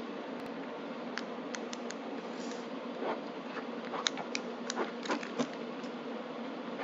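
Fidget cube being clicked and fiddled with: a dozen or so small, sharp clicks at irregular intervals.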